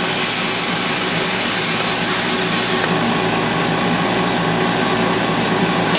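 Angle grinder cutting steel, a steady grinding hiss with a few held tones; the high-pitched part of the hiss drops away about three seconds in.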